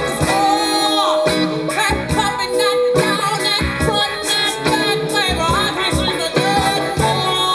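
A woman singing with strong vibrato over a live band, drums keeping time beneath her voice.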